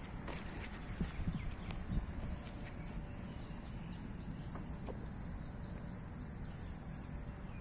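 Spring woodland ambience: birds chirping high and in quick repeated phrases over a steady low outdoor rumble. A few soft knocks come between about one and two seconds in.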